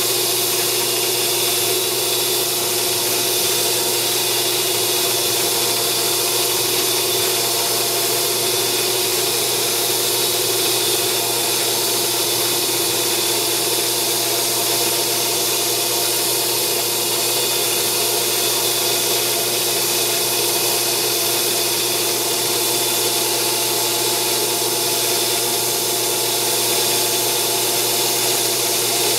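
Grizzly G0602 lathe, converted to CNC, running steadily as its tool turns a part under program control. The sound is an even machine hum with several steady tones over a hiss.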